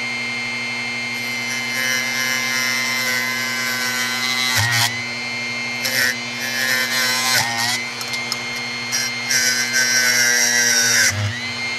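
Dremel rotary tool running at high speed with a felt polishing bob, while a utility-knife blade is held against the spinning felt to trim it down. The blade scrapes the felt in several bursts, and the motor's whine dips briefly each time it is pressed hard, three times in all.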